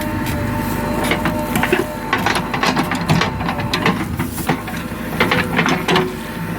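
JCB 3DX 49 hp backhoe loader's diesel engine running as the machine works, with many irregular knocks and rattles over the steady engine tone.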